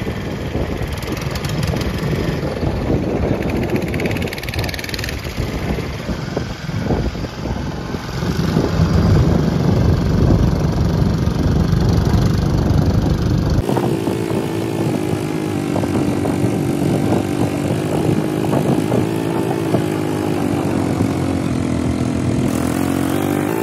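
Motorboat engine running on the river, a steady mechanical drone with water and wind noise. About fourteen seconds in, the sound changes abruptly to a steadier, higher-pitched hum.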